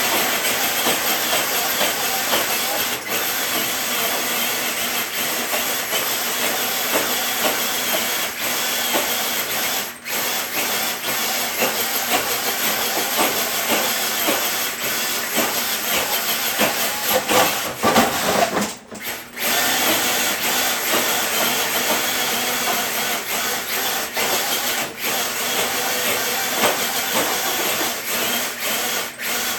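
Radio-controlled truck's electric motor and geartrain whining under load while it pulls a dead-weight sled, with tyres scrabbling on the ground. The sound dips briefly about ten seconds in, and again after a louder surge near the middle.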